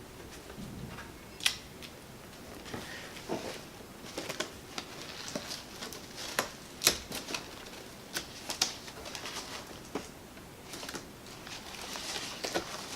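Sporadic sharp clicks and light knocks of hard plastic parts being handled and fitted together, about a dozen spread irregularly with a louder click about a second and a half in and another near the seven-second mark.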